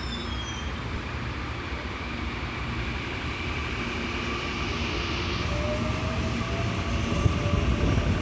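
CPTM Series 7000 electric commuter train running past on the track, a steady rumble of wheels on rail that grows louder as it comes close near the end. A faint rising tone joins the rumble about five seconds in.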